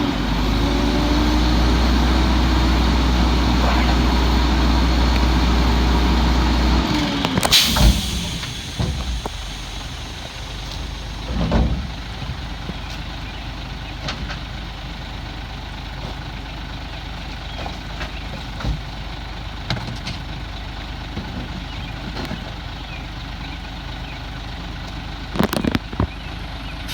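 Heil-bodied garbage truck's engine running hard, its pitch rising and falling, for about seven seconds. An air-brake hiss follows, and the engine then settles to a quieter run with scattered clicks and knocks.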